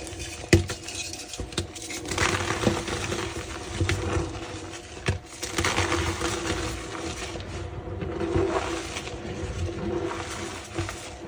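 Reformed blocks of gym chalk being crushed and crumbled by hand: continuous squeaky, dusty crunching with a couple of sharper snaps, one about half a second in and one about five seconds in.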